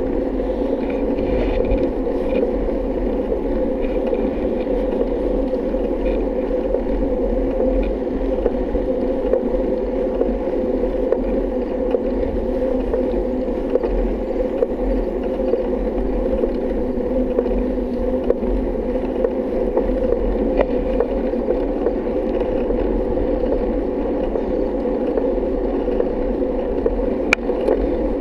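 Steady, muffled riding noise of a bike rolling along a paved road: tyre and wind rumble, mostly low and dull, with one short click near the end.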